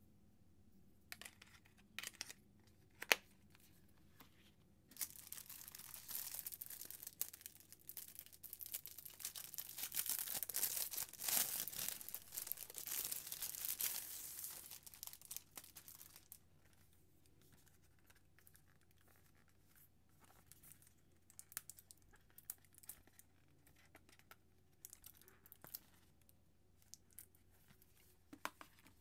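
Clear plastic shrink wrap being torn and peeled off a glass screen protector box, crinkling for about ten seconds and loudest in the middle. Before it come a few light clicks and one sharp click about three seconds in as plastic packaging is handled, and after it come scattered soft taps.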